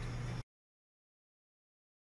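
A steady low hum with hiss that cuts off abruptly about half a second in, followed by complete silence.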